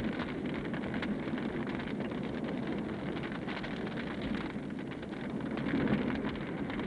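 Dubbed battlefield sound under archive war footage: a steady rumbling, crackling noise of armour and distant battle, with no distinct single shots.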